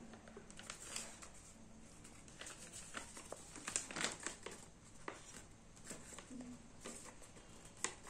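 A sheet of origami paper rustling and crinkling as hands fold and crease it: a faint, irregular run of short crackles, with the loudest ones about halfway through and again just before the end.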